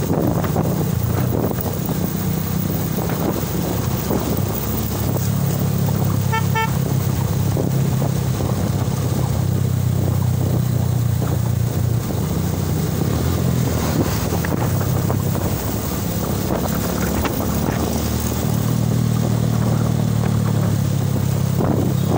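Motorcycle engine running steadily at cruising speed, heard from the riding bike with wind rushing over the microphone. About six seconds in there is a brief run of short, high beeps.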